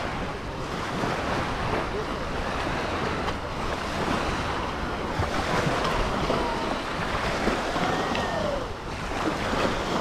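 Beach ambience: a steady wash of small waves on the shore mixed with wind buffeting the microphone, with faint distant voices of beachgoers.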